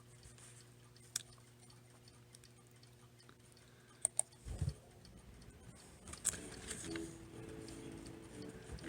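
Quiet room tone with a few faint clicks and a low thump about four and a half seconds in, then a faint instrumental backing track begins about six seconds in, the intro of the song's music.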